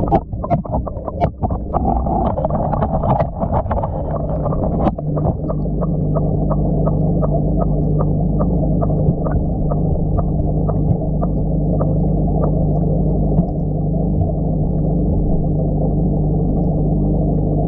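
Aquarium heard underwater through a submerged action camera: a steady low hum and bubbling from the air-driven sponge filter and its rising bubble column. In the first few seconds irregular knocks and clicks, then soft ticks about twice a second.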